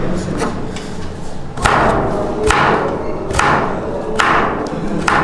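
A knife chopping carrots on a wooden cutting board: a steady series of knocks, about one a second, each blade stroke landing with a short crunch through the carrot.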